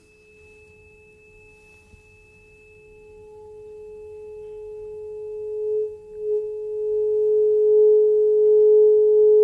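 A 426.6 Hz tuning fork sounding a steady pure tone over a resonance tube lowered into a water column. The tone starts faint and swells to loud over the last few seconds as the water closes the tube at its resonant length: closed-pipe resonance at the same frequency as the open pipe, with the tube sunk about halfway into the water.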